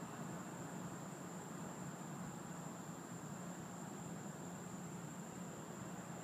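Steady background hiss with a constant high-pitched drone and a low hum beneath it. It stays even throughout, with no thunder or other sudden sound.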